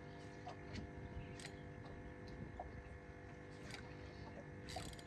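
Faint ambience on a fishing boat: a steady low hum with scattered light clicks and ticks.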